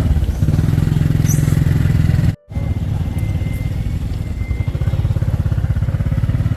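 Motorcycle engine running steadily under way, with a very brief dropout about two and a half seconds in.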